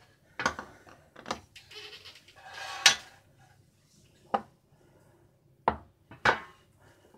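Black enamelled steel oven tray and a glass mixing bowl handled on a marble countertop: about half a dozen sharp knocks and clatters, the loudest about three seconds in.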